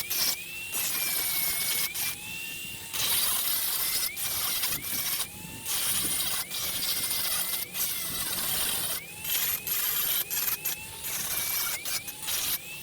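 Angle grinder cutting metal in short passes: a harsh grinding hiss that starts and stops repeatedly, with the motor's whine dropping under load at each pass and rising again between them.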